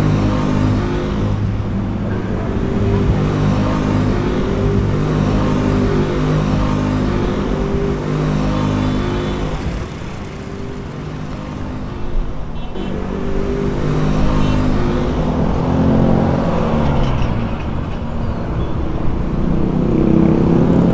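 Motor scooters and motorbikes running and passing in street traffic: a steady mix of small engines.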